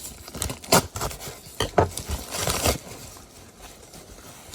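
Hands opening a mailing envelope: a few sharp clicks and knocks, and a short rustle about two and a half seconds in.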